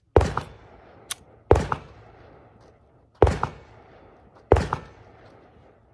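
Four pistol shots from a Sig Sauer P365 X-Macro 9mm, fired at a slow steady pace about a second and a half apart, each followed by a short echo.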